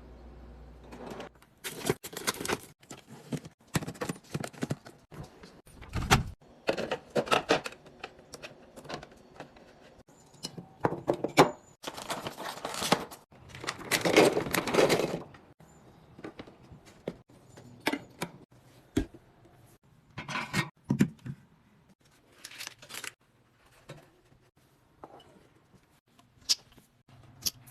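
Household items being handled and put away: irregular knocks, clicks and clatters of containers and packaging being set down and opened, with longer stretches of rustling.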